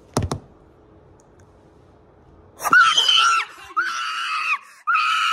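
Two quick knocks at the start, then a young woman screaming with excitement: three loud, high-pitched screams in quick succession about halfway in, at the news of a college acceptance.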